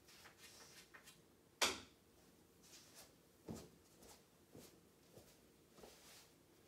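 Quiet handling sounds and knocks from a pool player between shots: a sharp knock about a second and a half in, a second one about halfway through, then a few softer knocks as he moves around the table.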